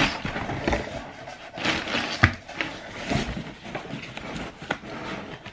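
Cardboard shipping boxes being closed and handled, with plastic packaging rustling and a few sharp knocks.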